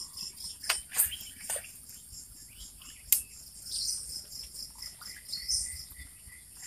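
Insects droning steadily high in pitch, with scattered bird chirps and a few sharp clicks in the first three seconds or so.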